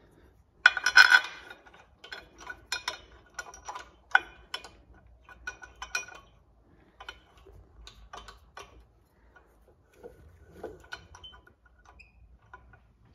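Metal clinks and clicks of steel bolts and a socket tool being handled while bolts are started into an adapter plate on an electric motor's aluminium block. A louder metallic clatter about a second in, then irregular light clicks that thin out toward the end.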